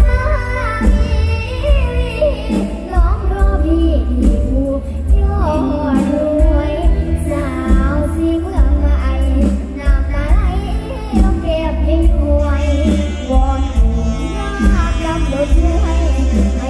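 A young girl singing a Thai song through a PA microphone, with live band accompaniment and a heavy bass line.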